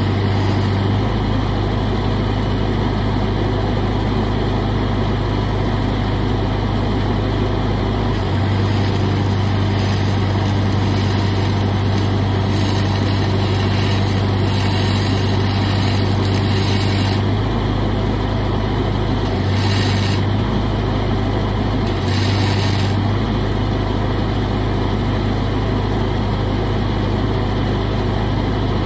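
Lincoln SA-200 engine-drive welder running under welding load, its engine note shifting several times as the spool-gun arc draws current and lets off. The hiss and crackle of the aluminum MIG arc comes in stretches.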